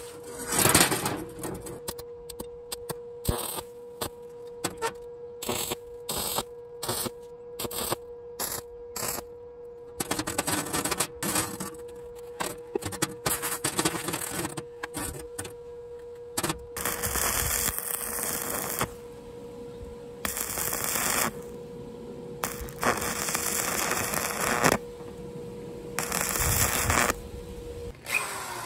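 Stick welder arc crackling and sputtering as the legs are welded onto a rebar body: many quick short strikes at first, then longer welds of a second or two each, over a steady hum.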